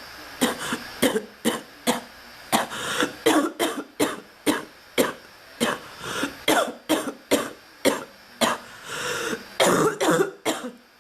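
A long coughing fit: short, sharp coughs about two a second, closing in a denser, louder bout near the end.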